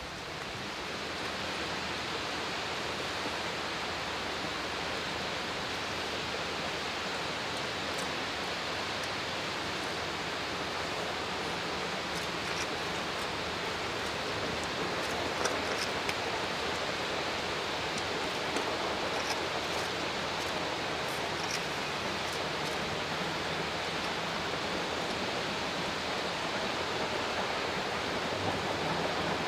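Steady rain falling, a constant even hiss with a few faint ticks of drops.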